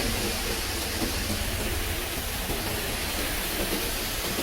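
Heavy rain and strong storm wind during a tornado: a steady, unbroken rush of noise, with a low rumble of wind buffeting the microphone.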